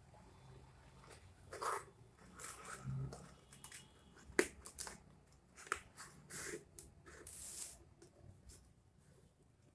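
A handmade cardstock box card being handled: the folded sides pressed shut and the lid fitted on, giving scattered paper rustles and light taps, with a sharp click a little over four seconds in.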